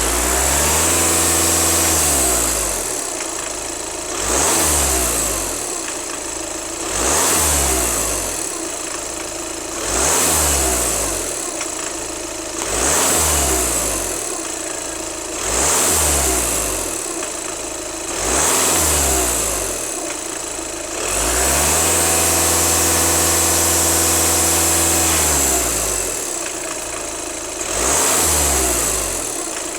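VW Golf 2.0 TDI four-cylinder diesel engine revved up and let fall back about nine times, one rev held for about five seconds, with a high hiss that comes with each rev. The owner hears a weird sound after the acceleration and does not know its cause.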